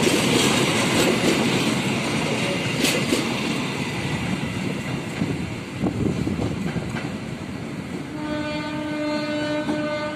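Passenger train coaches rolling past with sharp wheel clicks over the rail joints, the noise fading as the train draws away. Near the end a train horn sounds one steady note for about two seconds.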